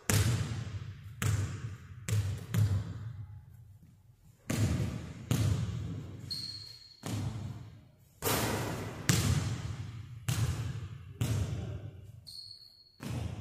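Basketball bouncing again and again on a hardwood gym floor, each hit echoing through the large empty gym. There is a short high squeak about six seconds in and again near the end.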